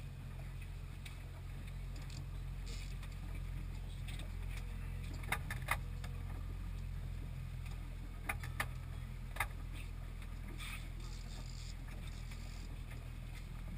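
Fishing boat's engine running steadily with a low hum, and a few short sharp clicks about five and eight to nine seconds in.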